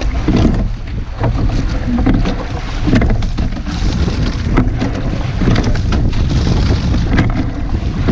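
Rowing shell under way: wind buffeting the microphone, water rushing along the hull, and sharp knocks that repeat with the oar strokes.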